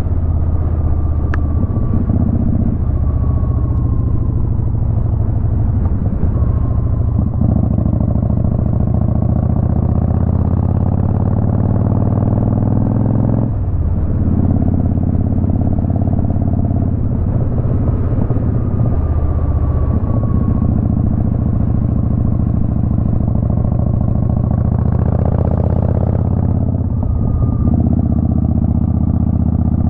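Motorcycle engine running under way with road and wind noise, its note climbing steadily and then dropping back several times as it accelerates through the gears.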